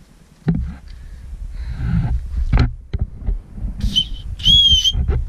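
Small plastic safety whistle blown twice: a short high-pitched blast about four seconds in, then a longer, louder one, sounded as a signal to people further off on the hill.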